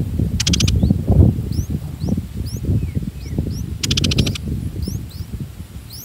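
Crackling rustle of leaves and nest twigs as an adult streak-eared bulbul moves about at the nest feeding its chicks, with many short high rising bird chirps over it. Two brief buzzy rattles come near the start and about four seconds in.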